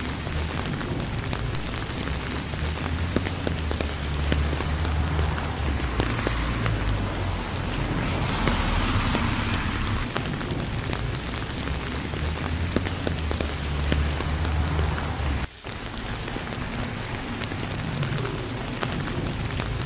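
Steady rain falling on a wet asphalt road strewn with fallen leaves: a dense patter of drops over a low rumble. The sound dips out briefly about three-quarters of the way through.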